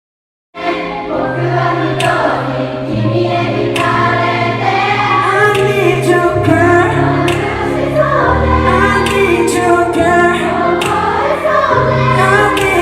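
A large crowd of concert fans singing a K-pop song together over the band's backing music, starting after a brief silence and cutting off abruptly at the end.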